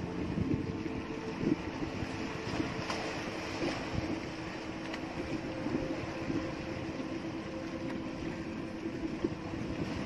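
Small outrigger fishing boat's engine running steadily, a low droning hum with a few irregular light knocks.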